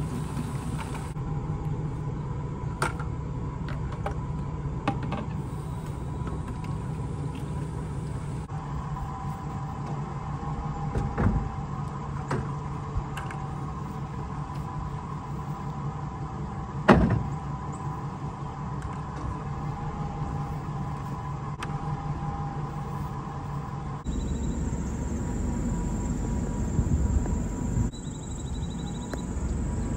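A vehicle engine running steadily, with a few sharp knocks, the loudest just past halfway. About three-quarters of the way through, the low rumble grows louder and rougher as the vehicle drives along.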